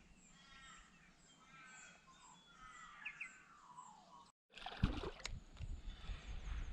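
Birds calling in the bush, several chirps and falling whistles over faint, evenly repeated high chirps. About four seconds in the sound cuts out abruptly, then a louder low rumble with rustles and knocks takes over.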